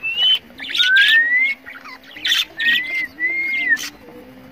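Caged rose-ringed parakeet calling: harsh screeching squawks alternating with clear whistled notes that glide upward, about four whistles in all.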